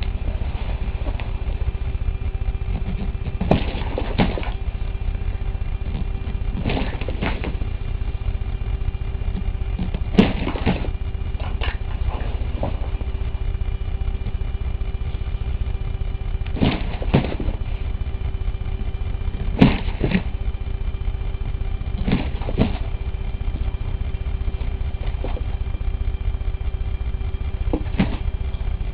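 Short sharp taps and knocks on a small hard-sided case, mostly in pairs about half a second apart, recurring every few seconds over a steady low rumble and faint hum.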